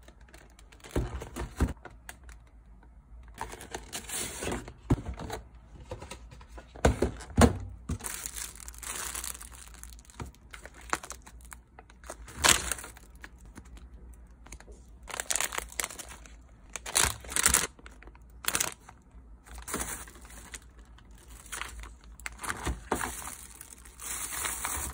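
Plastic food packaging crinkling and rustling in irregular bursts as vacuum-sealed packs of vegetables are handled.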